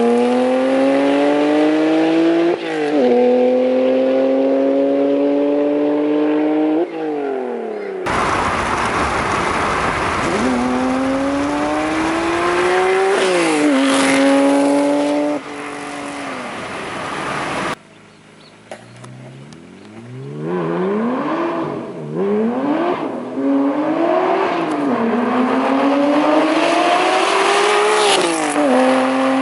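Honda NSX V6 through an aftermarket Taitec exhaust, accelerating hard through the gears: the engine note climbs and then drops sharply at each upshift. A middle stretch is overlaid with loud rushing noise, and later the revs rise and fall more briefly before climbing again.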